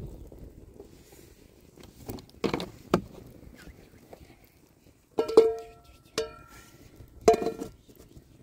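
Metal cookware clanking: a metal lid and pot knocked together, with a few light knocks and then three ringing clangs about a second apart, each tone dying away slowly.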